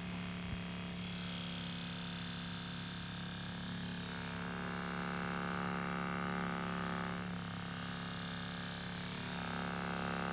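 SEVIZ Beatgun handheld massage gun, a brushless-motor percussion massager, running steadily with its ball head pressed on a leg muscle: an even, low electric hum.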